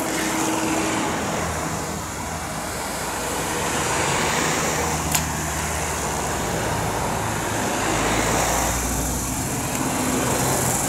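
Race convoy cars driving past one after another, their engines and tyres swelling as each goes by, with a single sharp click about five seconds in.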